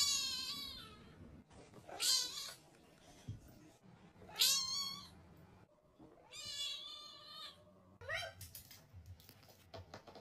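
Domestic cat meowing: about five high, wavering meows, each under a second long and roughly two seconds apart, the last one short.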